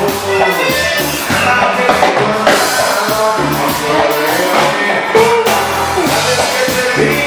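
Live band music: a man singing lead over electric guitars, with a steady drum beat underneath.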